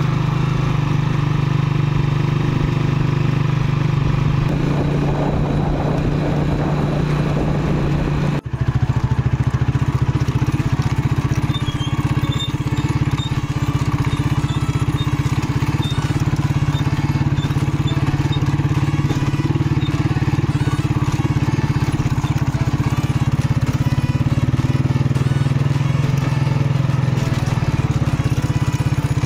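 Small motorcycle engine of a tricycle running steadily under way, with road noise. The sound breaks off for an instant about eight and a half seconds in and then carries on.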